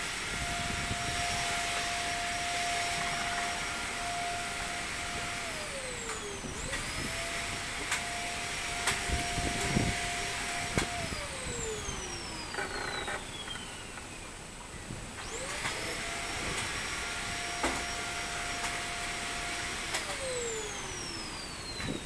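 Minmin cicadas (Hyalessa maculaticollis) calling as a steady buzzing haze. Over it a separate steady hum holds one pitch, then slides down three times, jumping back up after the first two slides.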